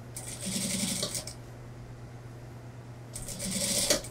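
Industrial sewing machine stitching in two short runs of about a second each, a few seconds apart, over a steady low hum. The machine is sewing a suit-jacket sleeve into the armhole.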